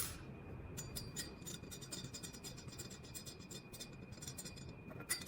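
Light metal clicks and scratches of pull-handle fittings being handled and fitted together: a quick run of small ticks, with a louder click at the start and another near the end.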